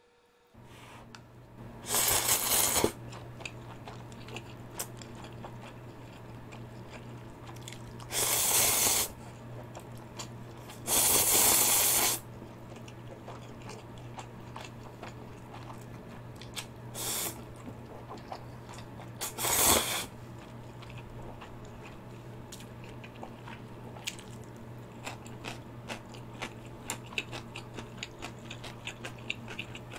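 Spicy instant ramyun being eaten: five long, noisy slurps of noodles in the first twenty seconds, then wet chewing with many small clicks.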